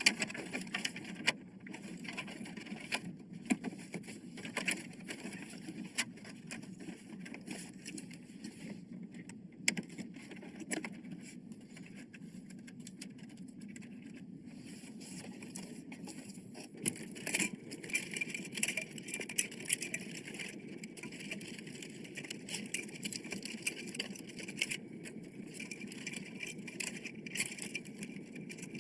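Irregular clicks and taps of small parts being handled and fitted during a PC assembly, over a steady low hum.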